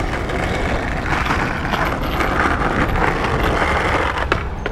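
Skateboard wheels rolling on asphalt, a steady grinding rumble, with a sharp click about four seconds in.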